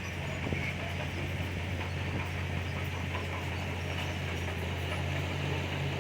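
Heavy diesel earthmoving machinery running steadily with a low, even hum.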